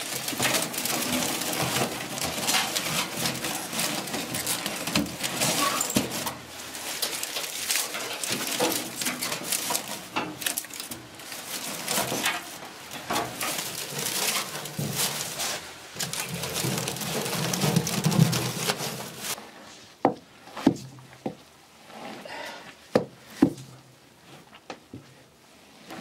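Dry straw rustling as it is handled and packed by hand into a metal lautering trough, layering the straw filter bed. After about twenty seconds the rustling stops, and a handful of sharp knocks follow.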